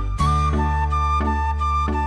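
Background music: a held melody line over a low bass, with notes struck at a steady beat.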